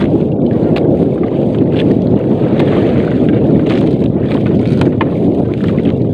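Heavy wind buffeting the microphone in a steady, loud rumble, with a few faint clicks scattered through it.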